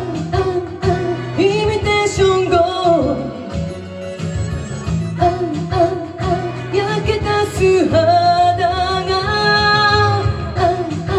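A woman sings a Japanese pop song into a handheld microphone over recorded backing music, holding long notes, the longest near the end.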